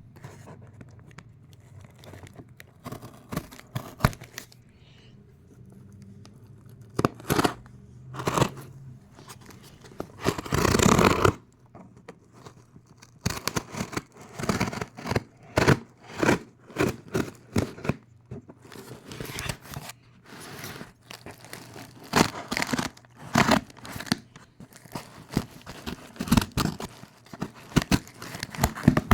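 Scissors cutting and tearing open a shipping package: a string of short sharp snips and rips, sparse at first and then coming thick and fast, with one longer tear about eleven seconds in.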